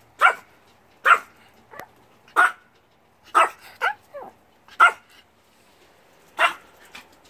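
Small Yorkshire terrier barking: about seven sharp, high yaps at uneven intervals, with a few softer ones in between.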